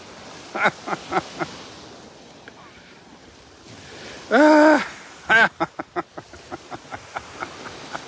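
A man laughing: a few short laughs about a second in, a loud drawn-out laugh about four seconds in, then a run of quick breathy laughs tailing off. Soft surf and wind on the microphone run underneath.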